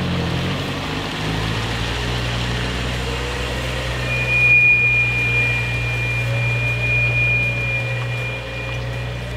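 Car engine running at low speed with a steady low exhaust drone, over the hiss of falling rain. A steady high-pitched tone sounds for about four seconds from near the middle.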